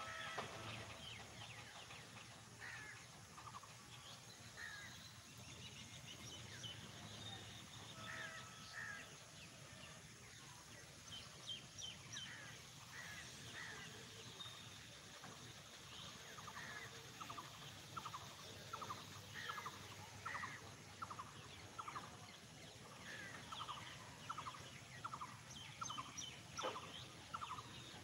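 Covered freight wagons rolling slowly past, a faint low rumble. Over it come short, faint high chirps or squeaks, scattered at first and then repeating about twice a second in the second half.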